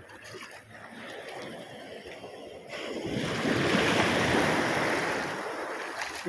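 Shallow seawater washing and sloshing, swelling louder for a couple of seconds midway and then easing off.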